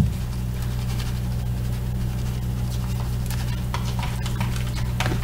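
Kitchen prep sounds: one sharp knock right at the start, then a few faint taps of utensils on a counter or bowl, over a steady low hum.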